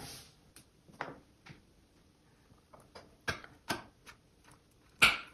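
Scattered light clicks and knocks from a lamp cable being handled and laid along a tabletop to measure it, irregularly spaced, with the loudest knock about five seconds in.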